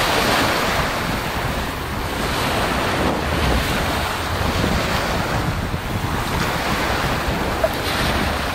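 Small waves breaking and washing up a pebbly shore in a steady rush, with wind buffeting the microphone.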